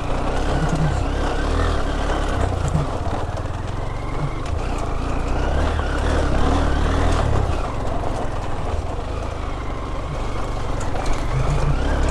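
Motorcycle engine running while riding over a rough dirt track, its pitch rising and falling with the throttle.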